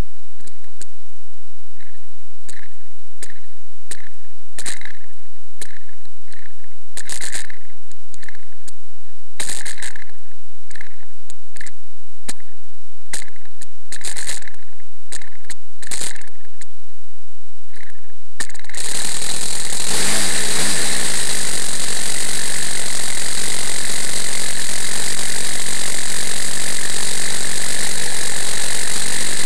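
A small model-airplane engine being started: a run of separate clicks and knocks as it is worked by hand, then about two-thirds of the way through it catches and runs steadily at high speed with a buzzing drone.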